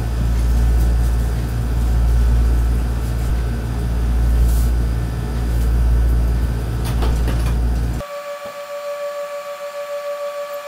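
Loud low rumbling noise that cuts off abruptly about eight seconds in, replaced by steady held tones with a soft pulsing beat, like background music.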